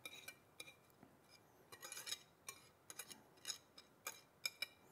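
Wire whisk scraping chopped herbs off a ceramic plate into a bowl of oil, its wires clicking faintly and irregularly against the china, about three light clicks a second.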